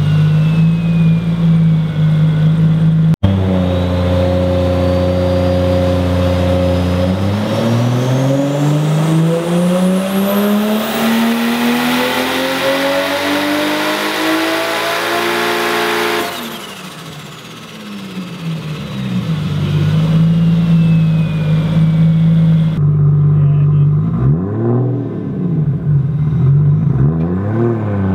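Turbocharged Toyota 1.5JZ straight-six of a drift car on a hub dyno: idling, then a dyno pull at full load with the revs climbing steadily for about eight seconds, a thin high whine rising with them, before a sudden lift-off and the revs falling back to idle. Two quick throttle blips near the end.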